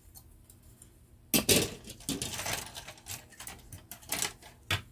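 Plastic model-kit parts trees (sprues) clattering as they are handled and laid down on a cutting mat: a burst of light clicks and knocks about a second in, then scattered clicks and a last sharp knock near the end.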